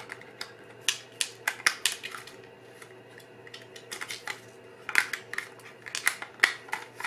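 Light plastic clicks and taps of fingers handling an open Holga 135 camera body and 35 mm film while loading the film, in scattered bunches with a quieter stretch in the middle.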